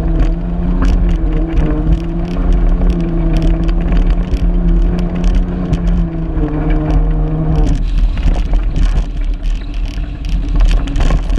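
Car engine running at a steady high pitch over heavy tyre and wind rumble on a dirt track, with many sharp ticks of gravel striking the car. About eight seconds in the engine note drops out, leaving the rumble and ticking.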